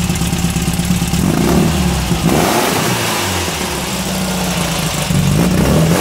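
Air-cooled VW flat-four stroker engine of 2010 cc, running through an open chrome exhaust shortly after a cold start, revved up about a second in, settling back, and revved again near the end.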